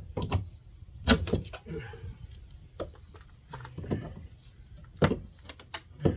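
Irregular knocks and thumps of hand demolition on old wooden wall framing. The louder strikes come about a second in and near the end.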